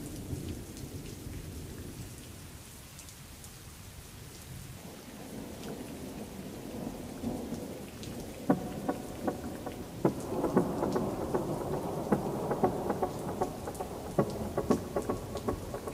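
Rain and thunder sound effects: steady rain hiss over a low rumble, building from about halfway with sharp crackles and a faint pitched layer.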